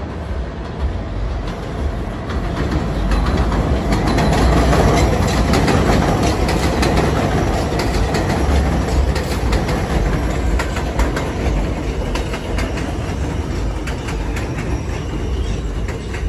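New York City subway train pulling into an elevated station on a steel el structure. The wheels clatter over the rail joints under a heavy rumble that swells about four seconds in and eases as the train slows alongside the platform, with a faint whine near the end.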